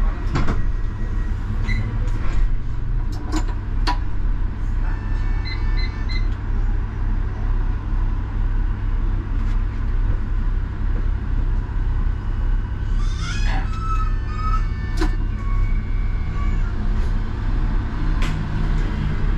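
Škoda 39T tram heard from on board: a steady low running rumble, with a few sharp clicks, three short beeps about five seconds in, and a brief squeal about two-thirds of the way through.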